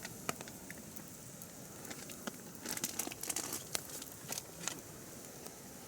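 Firewood burning in a campfire, crackling with scattered sharp pops, a quick run of them about three seconds in.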